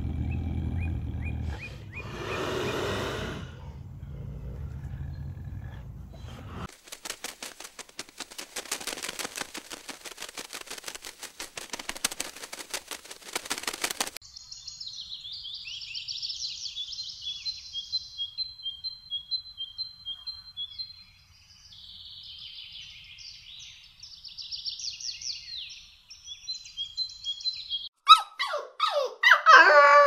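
A leopard's low rumbling pant with a breathy chuff about two to three seconds in. This gives way to a fast, dry, even rattle, then a songbird singing: chattering phrases with high, thin whistled notes. Near the end come dogs' whimpers and yips.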